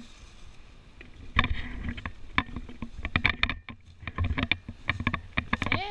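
Footsteps crunching and rustling through dry fallen leaves on a woodland trail, an irregular run of crisp crunches that starts about a second and a half in.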